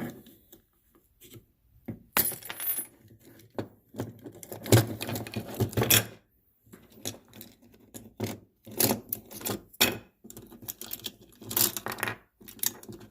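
A circuit breaker being taken apart by hand: small metal and plastic parts click, clatter and clink in an irregular string of sharp knocks.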